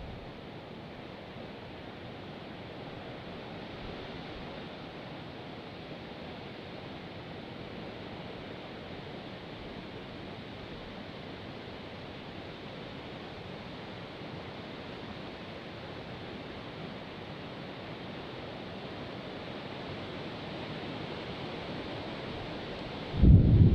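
Steady, even rushing of wind outdoors. Near the end a gust hits the microphone with a sudden loud low rumble.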